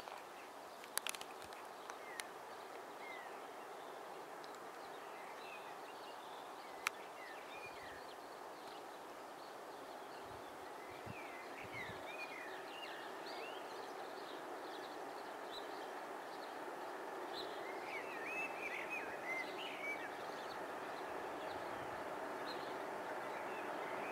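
Outdoor ambience: a steady background hiss with small birds chirping now and then, the chirps thickest about three-quarters of the way through. A few sharp clicks come in the first seven seconds.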